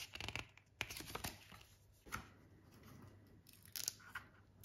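Pages of a small paper instruction booklet being flipped and handled: a run of crisp paper rustles and clicks, thickest in the first second and a half. Near the end comes a sharper tap as the plastic thermostat is lifted from its cardboard box.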